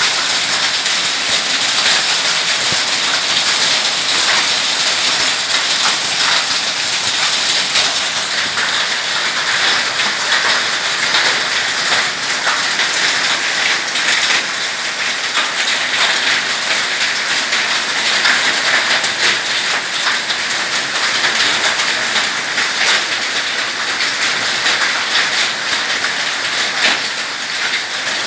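Heavy rain falling steadily in a strong storm, a dense hiss of drops hitting surfaces.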